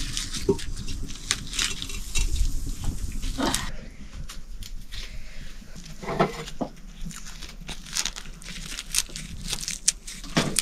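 Dry red onion skins crackling and tearing as they are peeled off by hand, a run of short, irregular crackles.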